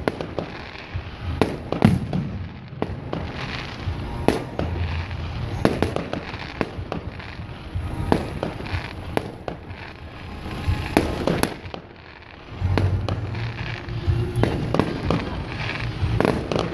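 Aerial fireworks shells bursting one after another: a string of sharp bangs and crackles, with a short lull about twelve seconds in.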